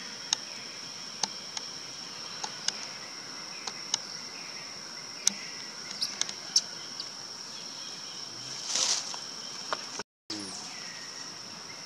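Steady high-pitched insect drone, with scattered sharp clicks and a brief rustle about nine seconds in; the sound cuts out for a moment near ten seconds.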